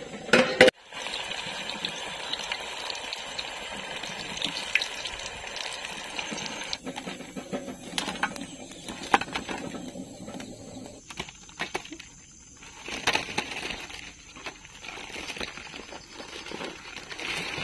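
Battered egg pieces sizzling and crackling as they deep-fry in groundnut oil. After a few seconds this gives way to quieter, scattered clicks and knocks.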